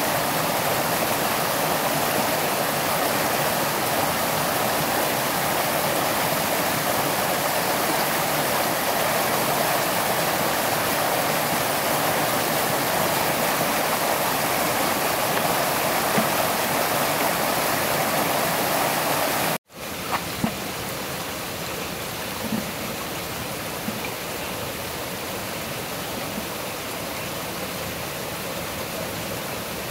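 Forest stream running, a steady rush of water. About two-thirds of the way through it cuts out for an instant, then goes on a little quieter with a few faint knocks.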